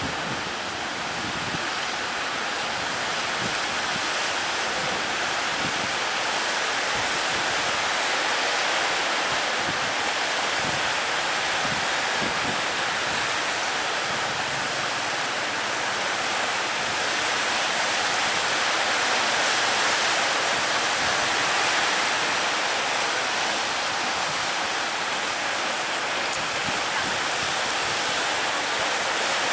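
Ocean surf breaking on the beach: a continuous rush of waves that swells and eases slowly.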